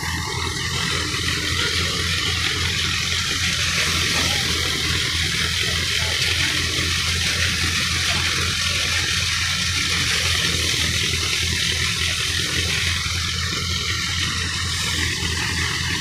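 Tractor-driven wheat thresher running steadily: a continuous rushing noise from the threshing machine over the steady low hum of the Belarus tractor's diesel engine that powers it.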